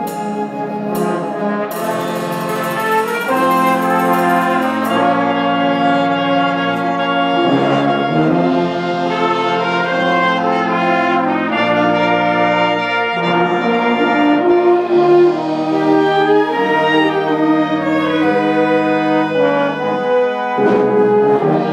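Community concert band playing, with brass sustaining full chords that change every second or so. Percussion strikes and a rapid rattling roll sound in the first few seconds.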